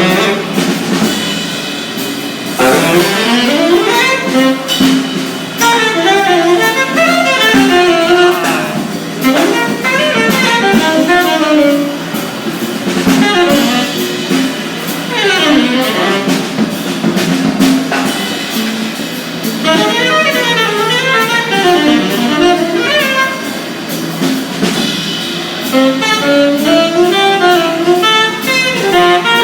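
Jazz music with a saxophone playing a winding melody over drums.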